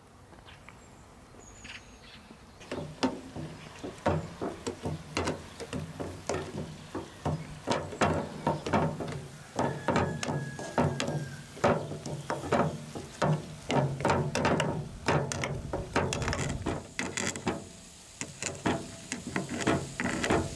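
Boiled potatoes and carrots being mashed in a frying pan with the bottom of a glass jar: a rapid, irregular run of knocks and taps as the glass presses down through the potatoes onto the pan, starting about two and a half seconds in.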